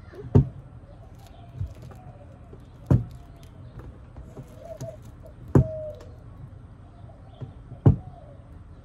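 A hot soldering iron being jabbed into the bottom of an upturned plastic bucket to poke drainage holes, giving several sharp knocks a second or more apart. Faint bird calls in the background.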